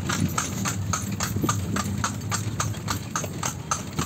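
Horse's hooves clip-clopping on a paved road as it pulls a kalesa, a horse-drawn carriage: an even beat of about four to five hoofbeats a second.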